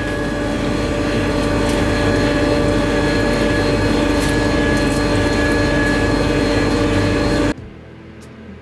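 Benchtop drum sander running steadily, a hum with a steady whine, as a wooden board is sanded on it. The sound cuts off suddenly about seven and a half seconds in.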